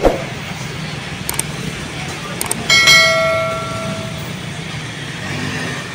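Steady city street traffic noise, with a single clear metallic ring about three seconds in, like a struck bell, that fades over a second and a half.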